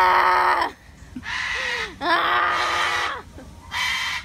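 Cockatoo screaming: about four loud, harsh screeches in a row, the third the longest.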